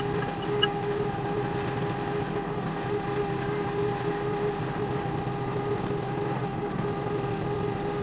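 Derette DRT450 mini skid steer's Honda gas engine running steadily with a constant pitched hum, working a land leveler over a gravel driveway.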